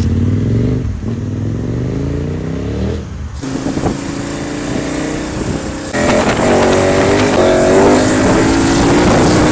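KTM adventure motorcycle engine accelerating hard, its pitch climbing, heard in three clips spliced together with abrupt changes about a third and two thirds of the way in; the last stretch is the loudest.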